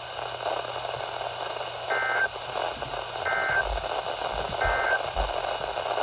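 Radio receiver hissing with static, then three short bursts of warbling two-tone data about a second and a half apart: the EAS end-of-message code that closes the alert.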